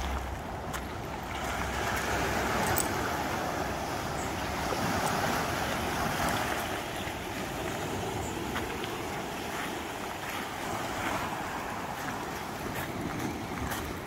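Small Black Sea waves washing in over a rocky, pebbly shore, swelling and ebbing in a steady surf.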